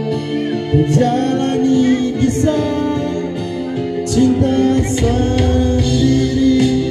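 A man singing into a handheld microphone along with accompanying music that features guitar.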